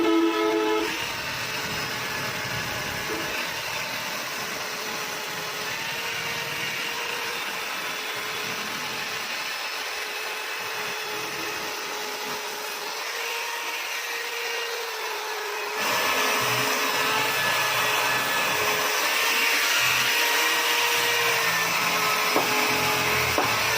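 A small power tool running steadily as carved wood is cleaned, with a steady hum and a hiss; it gets louder about two-thirds of the way in, as if pressed harder into the wood.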